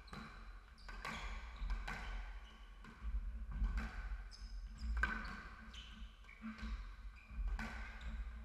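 Squash rally: the ball struck by rackets and smacking off the court walls, about one sharp hit a second, with short squeaks of court shoes on the wooden floor.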